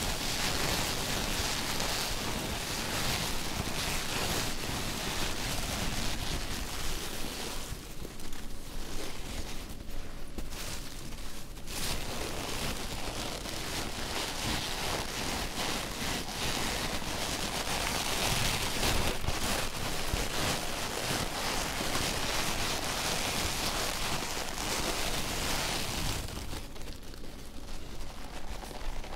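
Gloved hands squeezing and shaking a small cardboard box of white foam packing pieces close to the microphone, giving a dense crackling rustle. It softens for a few seconds about a third of the way in and again near the end.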